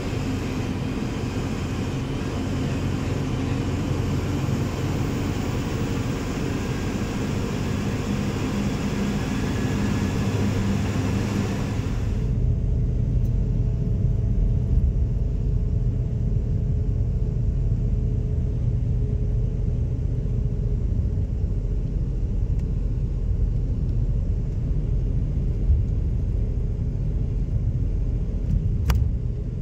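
Running noise of a moving Ashok Leyland BS VI sleeper coach: a steady hum of road and engine with faint engine tones. About twelve seconds in it changes abruptly to a duller, deeper rumble with the hiss gone, and a single sharp click comes near the end.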